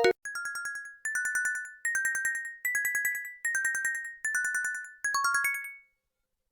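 Motorola mobile phone ringtone, recorded directly from the handset's audio output: a high electronic chime of rapidly pulsed two-note phrases, one about every 0.8 seconds, stepping up in pitch and then back down, stopping about six seconds in. A louder previous ringtone cuts off right at the start.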